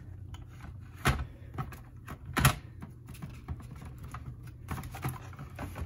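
Small clicks and taps of a photo frame being handled as its backing is taken off, with two sharper, louder knocks about a second in and about two and a half seconds in.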